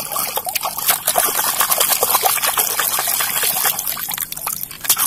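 Water splashing and sloshing as a small plastic toy bus is swished back and forth through muddy water to wash it, with many quick irregular splashes.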